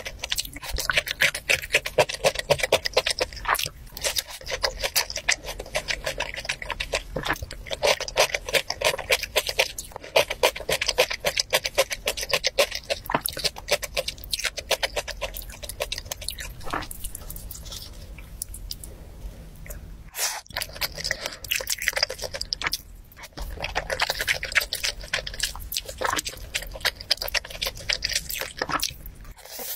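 Close-miked chewing and crunching of mouthfuls of rice, kimchi and pickled vegetables, with wet mouth clicks. The clicks are dense and quick, easing off to a quieter stretch about two-thirds through.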